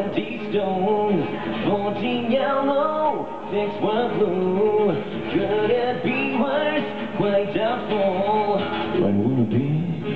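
A man singing a rock song live over amplified acoustic guitar.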